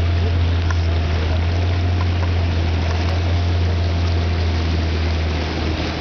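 Boat motor running at a steady speed: a deep, even hum with a steady hiss above it.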